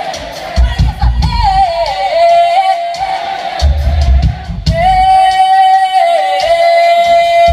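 Live pop music: a woman singing a held, gliding melody over a deep bass line that comes and goes.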